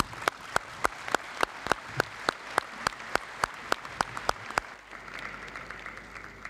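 Audience applauding, with loud evenly spaced claps standing out at about three and a half a second. The claps stop about five seconds in and the applause dies away.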